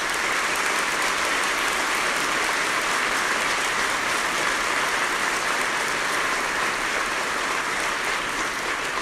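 Large audience applauding, many hands clapping steadily.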